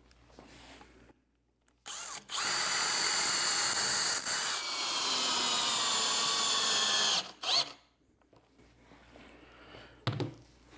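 Cordless drill/driver driving a long screw through a plywood carrier board into a log: a brief blip, then the drill runs steadily for about five seconds, its whine sinking slightly as it works, and stops with a short final burst.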